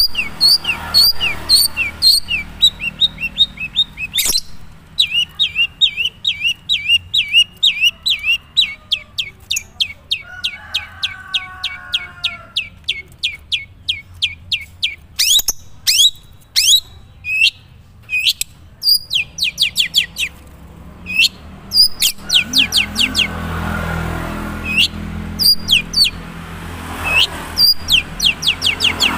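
Long-tailed shrike (cendet, Madura type) singing its own natural song, not yet much filled with mimicked calls: long runs of short, sharp chirps, several a second, broken by brief pauses.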